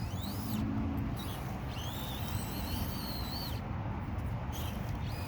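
Axial SCX24 micro crawler's small electric motor and drivetrain whining, the pitch rising and falling several times as the throttle is worked. A steady low rumble of wind on the microphone runs underneath.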